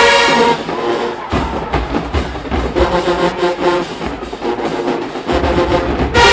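HBCU marching band playing. It is a drum-heavy stretch with steady percussion hits under softer horns, then the full brass section comes back in loudly near the end.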